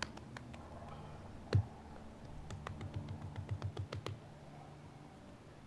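Hands working fresh-dug red clay onto a mud fireplace: a soft thump about a second and a half in, then a quick run of soft pats as the clay is pressed and patted into place, with scattered light clicks.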